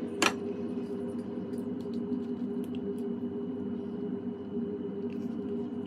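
A steady low hum throughout, with one sharp click just after the start and scattered faint ticks and crackles from pizza being handled and eaten.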